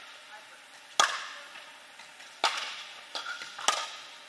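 Pickleball paddles striking a hollow plastic pickleball in a rally: four sharp pops, the loudest about a second in, each with a short echo from the large indoor hall.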